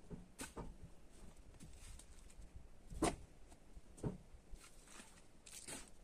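A shovel digging into a pile of loose soil, several separate scraping strokes, the loudest about halfway through.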